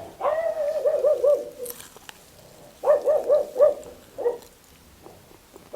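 A dog whining in high, wavering cries, begging for a chicken bone: one long whine that wobbles in pitch near the start, then a quick run of four short warbling whines about three seconds in and one more shortly after.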